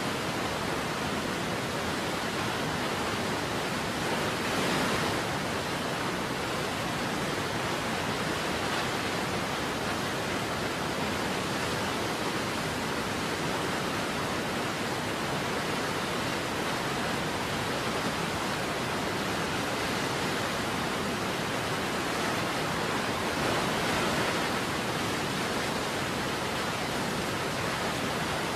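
Waterfall: a steady, even rush of falling water, swelling slightly twice.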